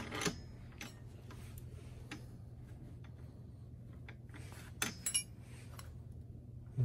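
Small metal clicks and scrapes as the metal type holder of a hot foil stamping machine is slid into its mount and test-fitted, with a cluster of clicks about five seconds in, over a steady low hum.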